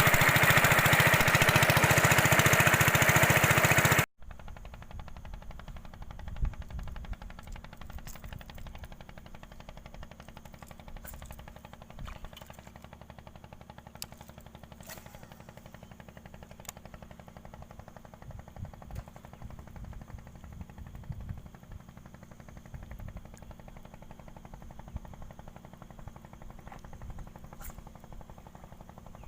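A small engine running loudly with a rapid pulsing, cut off abruptly about four seconds in. After that, quiet low thumps and rumbling with a few faint clicks.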